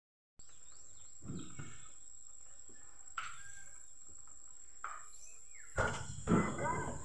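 Outdoor ambience of a steady high-pitched insect trill with a few short bird chirps, and a louder burst of noise near the end.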